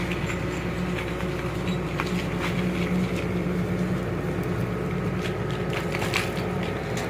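Excavator's diesel engine running steadily, with scattered cracks and knocks of earth and rock being dug.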